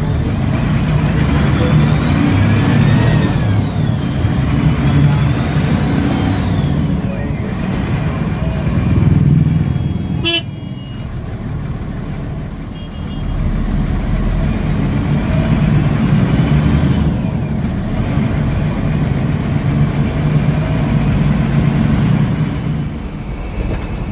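Bus engine running as it drives slowly through road traffic, heard from inside the bus. Vehicle horns toot now and then, with a short sharp horn about ten seconds in.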